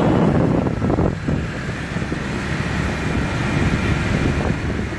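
Motor scooter running on the move, heard from the pillion seat, with wind rushing over the microphone. A rough, dense rumble, a little louder in the first second or so.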